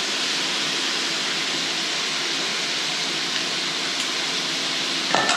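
Chicken wings deep-frying in hot oil: a steady, dense sizzle, with one brief knock near the end.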